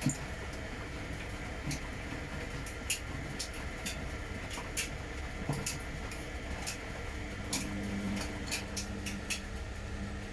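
Front-loading washing machine running a boil-wash cycle: a steady motor and drum hum with a faint high whine and scattered irregular clicks, the low hum growing stronger in the second half.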